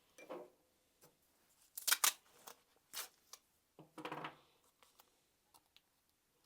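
Masking tape being worked off the roll and torn into strips: a handful of short crackling rips and sharp snaps, the loudest pair about two seconds in and a longer crackling pull about four seconds in.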